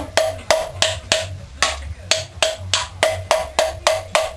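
Rubber mallet striking an engine oil pan over and over, about three blows a second, each blow with a short metallic ring. The pan is glued on and does not come loose.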